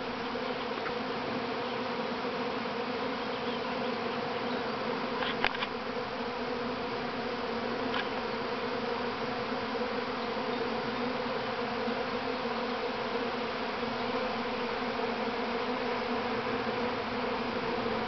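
Honey bee swarm issuing from its hive: thousands of bees in flight buzzing together in a steady, dense drone.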